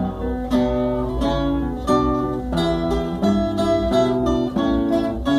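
Instrumental music: acoustic guitars plucking a quick melody of separate notes over a bass line, with no singing.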